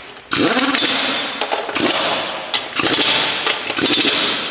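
Pneumatic impact wrench running in about four short bursts, each starting sharply, with the rattle of its hammer mechanism as it runs car wheel lug nuts down lightly.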